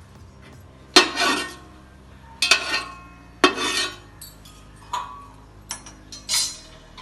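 A metal utensil clanking and scraping against a metal biryani pot, about six separate strikes a second or so apart, as whole spices are stirred while frying in ghee and oil.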